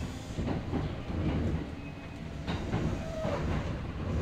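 Kintetsu 8000-series electric train heard from inside motor car Mo 8230 while running: a steady rumble of wheels on rail with irregular clacks from the track.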